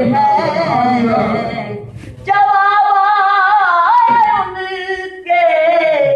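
A man singing a naat (Urdu devotional song) into a microphone, drawing out long, ornamented held notes, with short breaks about two seconds in and again about five seconds in.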